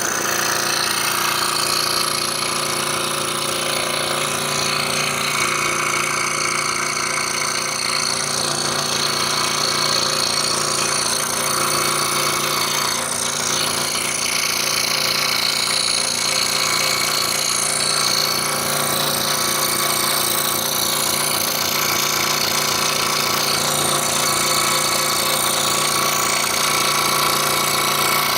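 Scroll saw running steadily, its blade stroking up and down fast as it cuts an intricate wooden jigsaw puzzle piece.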